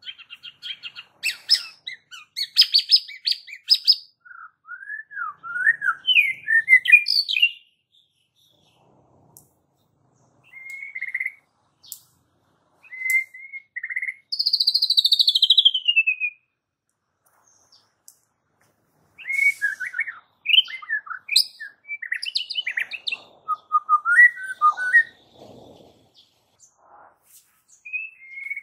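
White-rumped shama singing in varied bursts of rapid chattering notes and clear whistles. About halfway through comes a long falling whistle, and there are short pauses between the phrases.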